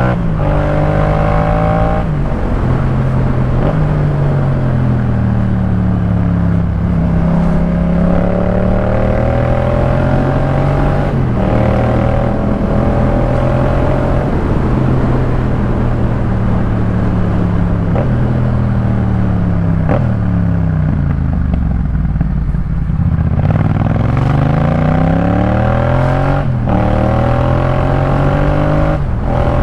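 Yamaha MT-07's parallel-twin engine through a Jeskap K4 full exhaust under way: it revs up through the gears with short breaks at the upshifts. About two-thirds through it eases off and falls in pitch, then pulls away and climbs again.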